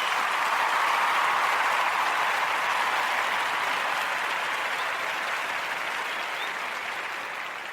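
Applause played as an entrance cue. It swells within the first second and then slowly dies away.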